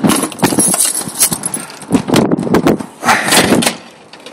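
Footsteps crunching on loose gravel: an irregular run of short, loud crunches and knocks.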